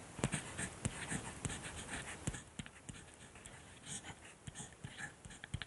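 Pen scratching on paper in short irregular strokes with scattered clicks: a handwriting sound effect.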